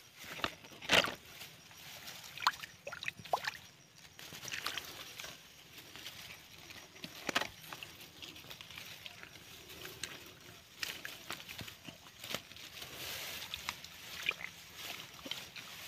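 Hands sloshing and splashing through shallow muddy water, with irregular sharp splashes, the loudest about a second in.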